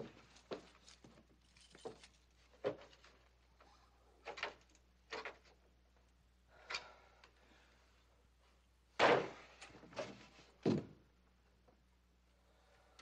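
Handling noises: a string of separate knocks, scrapes and wooden clunks as a large framed mirror and the things around it are moved, the loudest a heavy clunk about nine seconds in and another just before eleven seconds.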